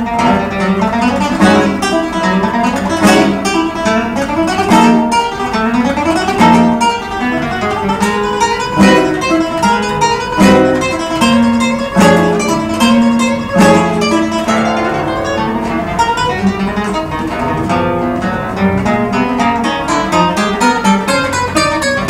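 Solo classical guitar, nylon-string, playing a fast virtuosic piece: rapid runs of notes with many sharp, percussive chord attacks.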